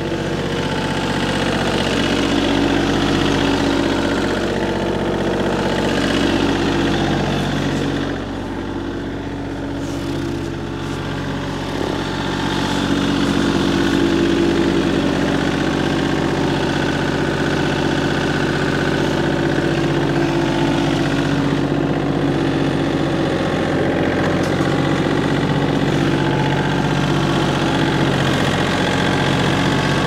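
Tractor engine running under load while dragging a log, a steady engine hum that eases off about eight seconds in and picks back up a few seconds later.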